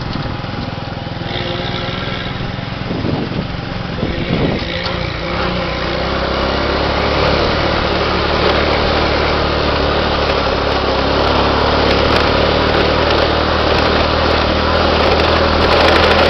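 Small motorbike's engine running steadily, heard close up from on the bike while riding, getting louder about six seconds in.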